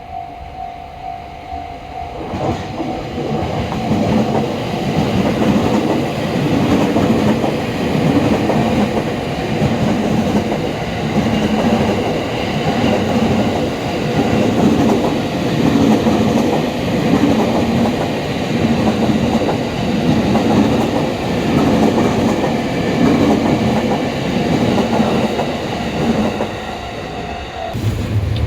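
A Japanese level-crossing bell ringing, while from about two seconds in a train runs through the crossing, its wheels clacking over the rail joints in an even rhythm.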